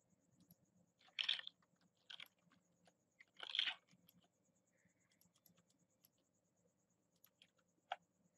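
Faint computer mouse clicks while working at a desk, with one sharper click near the end. Three short scratchy noises come in the first four seconds.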